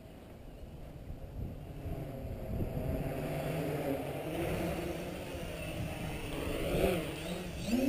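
Quadcopter's Waypoint 2208 1300kv brushless motors and propellers whining in flight, the pitch wavering up and down with throttle changes. It grows louder over the first few seconds and rises quickly in pitch at the very end.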